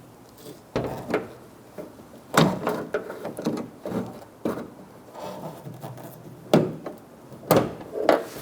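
Irregular clicks, knocks and rubbing as the metal linkage rod is worked out of the plastic bracket on the exterior door-handle mechanism inside a car door.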